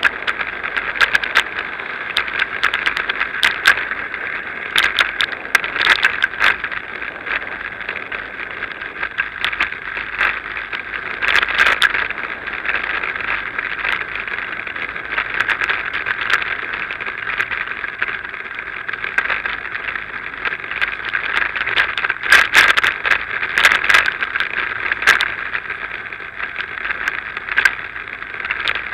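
Bicycle ride over pavement and block paving, recorded on a Drift HD170 action camera: a steady hiss of tyre and wind noise with frequent sharp rattles and clicks as the bike and camera jolt over bumps.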